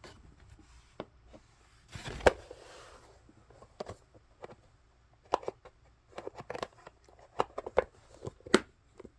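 Scattered light clicks, taps and rustles of small toys being handled and moved about, with one sharper knock about two seconds in.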